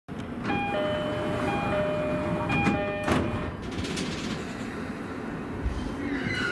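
Commuter train door-closing chime: a high-low two-tone repeated three times, then the sliding doors shut with a thump about three seconds in. Near the end a whine from the electric drive sets in as the train starts to pull away.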